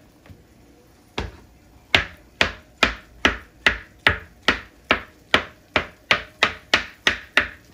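Kitchen knife chopping down through a block of tofu onto a plastic cutting board: after a short pause comes a single knock about a second in, then even, regular knocks about two and a half a second.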